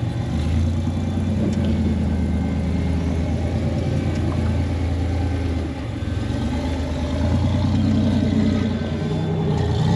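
Rock buggy's 4.3-litre Chevy V6 engine running at low revs as it crawls over boulders. The revs dip briefly a little past halfway, then build again near the end.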